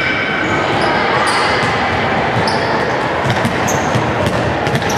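Basketball game sounds echoing in a large sports hall: the ball bouncing and sneakers squeaking briefly on the wooden court over a steady wash of noise.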